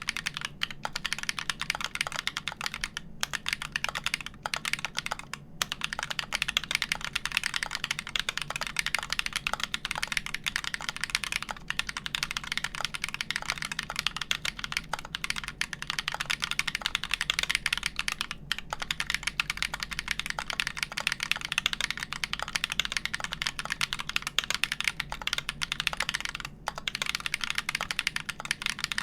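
Fast, continuous typing on a custom mechanical keyboard: a DOMA case with a wood plate, lubed Everglide Dark Jade Black switches on 63.5 g slow springs and GMK keycaps. It is a dense stream of key clacks with a few short pauses, about 3, 5 and 18 seconds in and again near the end.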